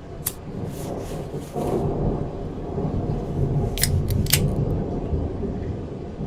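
Thunder rumbling low and long, swelling about a second and a half in, with a few sharp clicks: one near the start and two close together past the midpoint.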